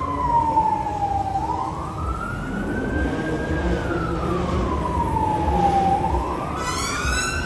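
Emergency vehicle siren wailing, its pitch sliding slowly down and back up, about four seconds per sweep, over a low steady rumble.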